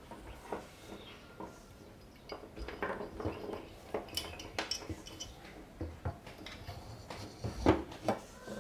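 Small metal parts clinking and knocking as they are handled, a string of irregular taps and clatters with a louder knock near the end.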